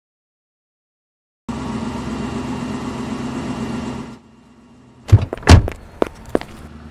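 After a second and a half of silence, a car engine runs steadily for about three seconds and cuts off. About a second later come two heavy car-door thuds, followed by a few lighter clicks.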